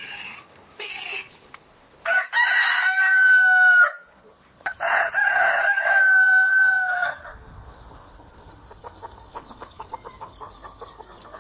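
Rooster crowing: two loud, long crows about two seconds apart, each held on a steady pitch, after a few short clucks. After the second crow comes a quieter farmyard background with many short ticks.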